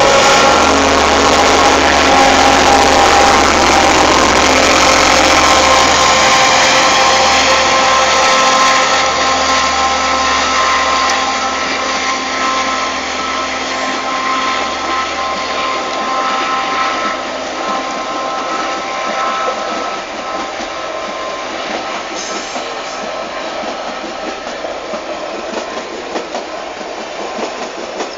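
Passenger train passing close by: the diesel locomotive's engine drone is strongest in the first several seconds. Then comes the steady rumble of the passenger cars rolling past, which slowly fades as the train draws away.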